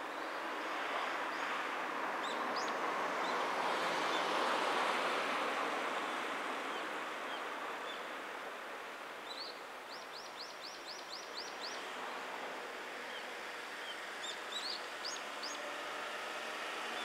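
Birds chirping over a rushing background hiss that swells and then fades over the first several seconds. About ten seconds in, one bird gives a quick run of about eight repeated chirps.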